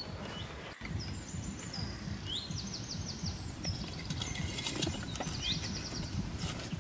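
Small birds chirping: quick bursts of rapid high notes, each opening with an upward sweep, twice, with scattered clicks and a low rumble underneath.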